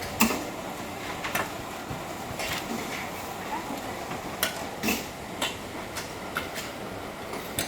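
Produce binding machine working, giving sharp, irregularly spaced clicks and knocks, about seven in all, over a steady noisy background as bundles are tied.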